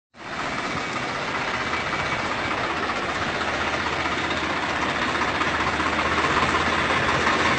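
Tractor engine running steadily: a constant low hum under a broad mechanical noise.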